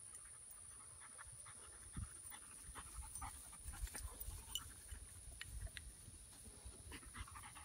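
A dog panting faintly, with scattered short rustles and a low rumble underneath.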